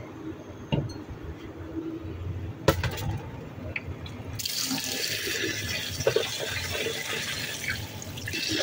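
A sharp knock, then from about four seconds in a kitchen tap runs water into a yellow bowl of long-grain rice in a steel sink as the rice is rinsed.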